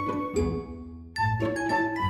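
Instrumental background music. The notes fade away from about half a second in, and the music starts up again abruptly just after one second.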